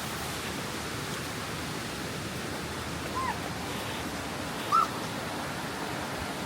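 Steady rushing of a mountain stream running over rocks, with two short chirps about three and five seconds in.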